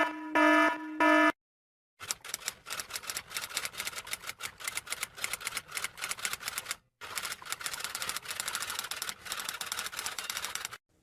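Typewriter sound effect: rapid clacking keystrokes, several a second, with a brief pause about seven seconds in. In the first second a ringing chime effect sounds a few repeated tones before a short silence.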